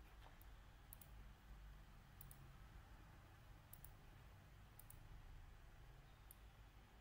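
Faint computer mouse clicks, about ten in all and several in quick pairs like double-clicks, over a low, steady hum.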